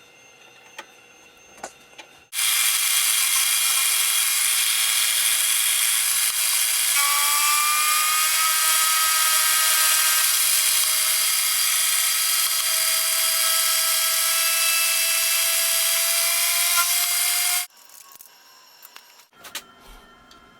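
A power tool running steadily for about fifteen seconds, with a faint whine that climbs slowly in pitch. It starts and stops abruptly.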